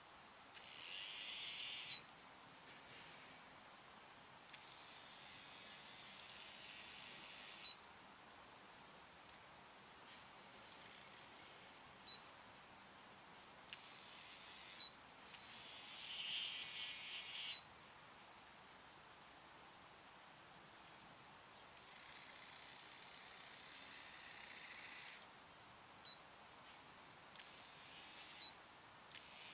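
Small electric gearbox motor of a kit-built tracked RC transporter running in repeated short spurts of one to three seconds, a steady whine as its crank and slide mechanisms lift and shift the cargo bed. Under it, a steady high insect drone.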